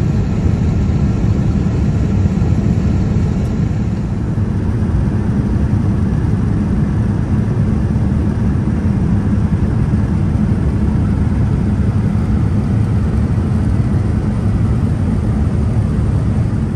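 Steady cabin noise of a Boeing 787-9 airliner in cruise: an even, deep rush of airflow and engine noise with no breaks. Its tone shifts slightly about four seconds in.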